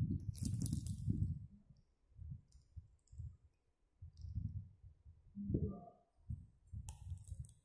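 Crinkling clicks of a plastic chocolate wrapper being handled and chewed by a baby, heaviest just after the start and again near the end, over dull low thumps. A short voice-like sound comes about two-thirds of the way through.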